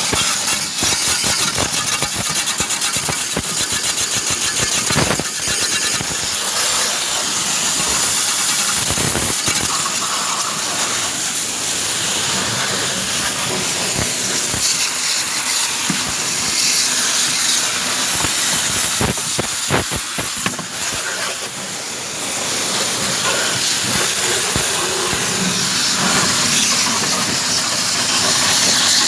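Loud, steady hissing with scattered clicks and knocks, dipping briefly about 21 seconds in.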